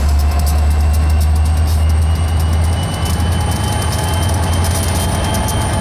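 Union Pacific diesel locomotives rolling slowly past: a steady deep engine rumble with thin high whines riding over it.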